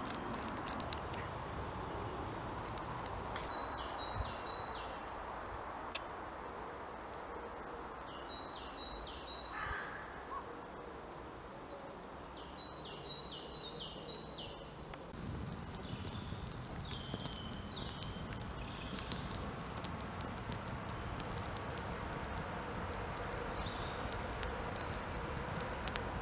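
Woodland birdsong. One songbird repeats a short song of several quick high notes about every four to five seconds, and other birds chirp in the second half, over a steady low background hiss.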